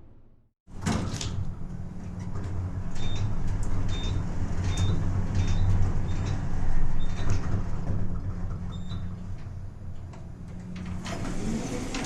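Elevator running: a steady low hum of the moving car with clicks and rattles, a run of short high beeps in the middle, and the doors sliding near the end.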